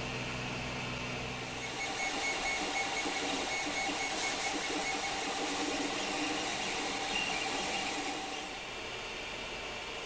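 CR-10 3D printer at work: a steady hum at first, then from about two seconds in its stepper motors whir in shifting tones as the print head moves, easing off near the end.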